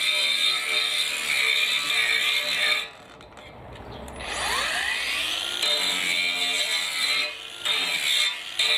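Cordless brushless angle grinder running under load with a high whine. About three seconds in it cuts out for over a second, then spins back up with a rising whine, and dips briefly again near the end: the small 1.5 Ah battery running down and the grinder stopping under load.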